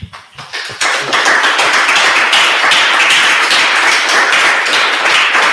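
Audience applauding: a few scattered claps that build within about a second into full, steady applause.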